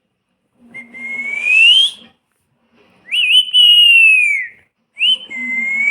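Pet parrot whistling: three clear whistles, the first and last rising in pitch and a longer one in the middle that falls.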